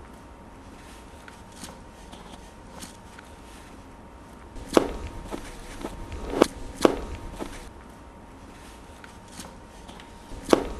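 Scattered sharp knocks and clacks of hard objects. One stands out a little before halfway, two come close together in the middle and one near the end, with lighter clicks between, over a low steady hum with a faint high tone.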